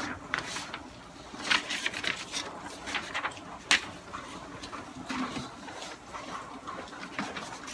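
Sheets of printer paper rustling as they are shuffled and handled in gloved hands, with one sharp click about halfway through.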